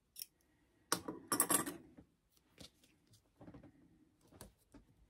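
Double-sided tape being pulled and snipped from its roll with scissors: a few sharp snips and a short crackle about a second in, then faint ticks as the tape and vinyl are handled.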